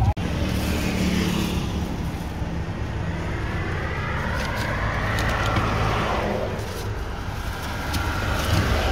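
A styrofoam fish box and plastic bags being handled, with scattered clicks, scraping and the squeaky rub of the styrofoam lid as it is lifted, over a steady low rumble.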